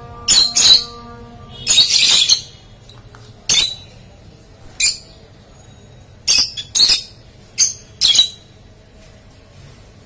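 Rosy-faced lovebirds giving short, shrill calls, about nine of them, some in quick pairs, with gaps of about a second between. Background music plays under the first couple of seconds and then fades out.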